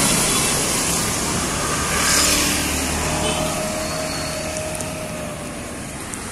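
Road traffic noise along a street: a steady rumble of passing vehicles, with one vehicle passing louder about two seconds in.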